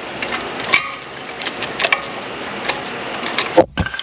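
Metal hand tools clink and scrape against the front brake caliper while a screw-type piston compressor is worked to push the caliper piston back in. There is a sharp knock about three and a half seconds in.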